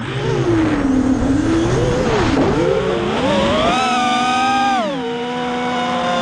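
FPV quadcopter's electric motors and propellers whining, the pitch dipping and wavering with the throttle, then climbing sharply about three and a half seconds in, holding high for about a second and dropping back to a steady tone.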